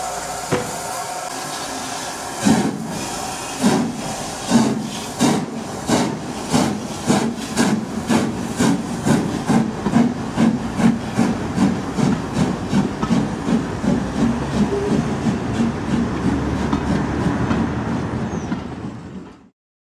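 Somerset & Dorset Joint Railway 7F 2-8-0 steam locomotive No. 88 pulling away with its train. First there is a steady hiss of steam; then, from about two and a half seconds in, exhaust chuffs come quicker and quicker as the locomotive gets under way. The sound cuts off suddenly near the end.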